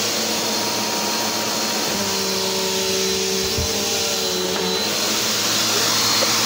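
Vacuum cleaner running steadily on carpet, its hum changing slightly between about two and five seconds in.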